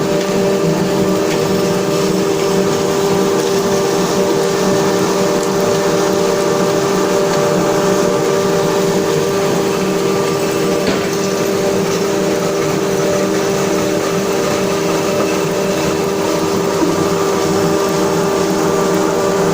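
Rotary veneer peeling lathe running steadily: an even machine hum with a constant whine, and a single brief knock about eleven seconds in.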